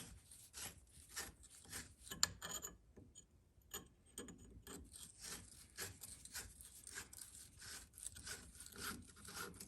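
A hand tool scraping and rubbing against the tight nut on a steering bellcrank, in repeated irregular strokes with a brief pause about three seconds in.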